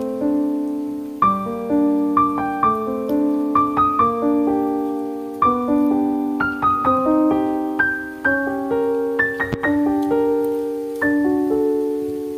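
Background piano music: a gentle melody of single notes played over chords.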